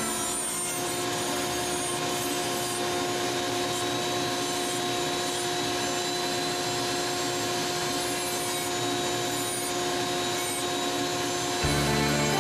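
Foredom flexible-shaft rotary carver running steadily with a constant whine, its drum-shaped toothed bit grinding and rasping away white cedar. Music comes in near the end.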